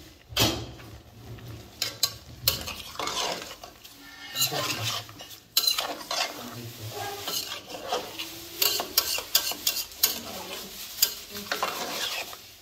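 A cooking utensil stirring a pan of simmering plum pickle (plums in vinegar and sugar), with irregular scrapes and knocks against the pan over a low sizzle.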